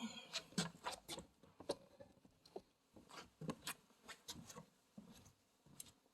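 Necrophonic ghost-box app on a phone putting out faint, irregular short clicks and scratchy fragments of sound, with a brief falling glide at the start.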